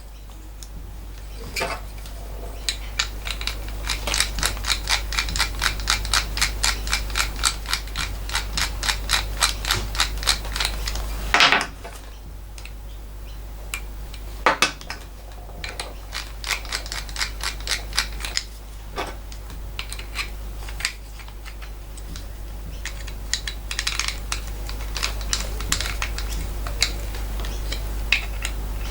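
Metal tools and parts being handled at a workbench during assembly of a flexible-shaft die grinder. A fast run of even clicks, about three a second, is followed by a loud metallic clatter and then scattered knocks.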